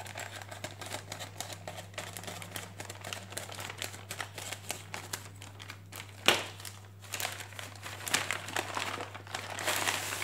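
Scissors snipping along the edge of a plastic courier mailer, with the plastic crinkling and rustling as the bag is cut, opened and a paper envelope is pulled out. A sharp click about six seconds in is the loudest moment, and a low steady hum runs underneath.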